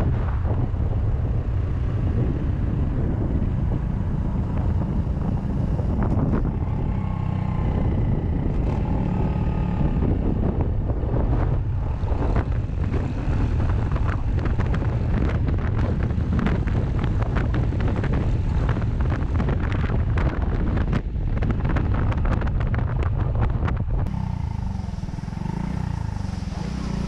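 Honda Cross Cub 110's single-cylinder engine running on the move, buried under heavy wind rush and buffeting on the microphone. About three seconds before the end the wind eases and the engine note comes through, changing pitch as the bike slows.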